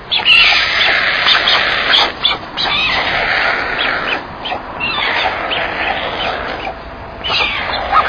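White storks scuffling in the nest: a rough, rustling, hissing noise that swells and dips irregularly as the chicks struggle over food.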